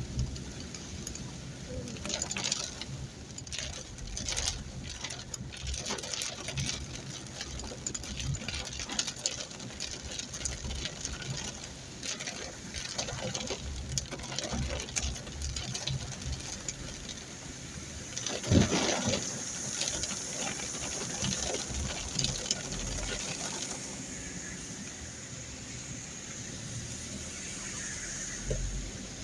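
Heavy rain pattering and splashing on a wet road, with many small irregular taps and one louder thump about two-thirds of the way through.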